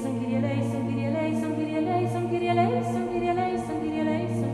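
Background music: an a cappella choir singing a slow chant over a steady low held drone note.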